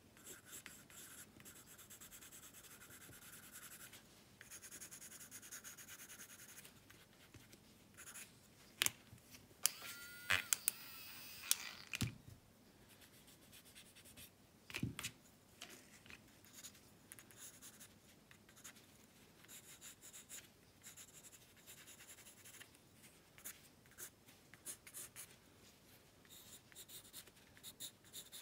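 Graphite pencil scratching across paper in repeated shading strokes. About ten seconds in there are a few louder clicks and rubs, and a dull knock comes a few seconds later.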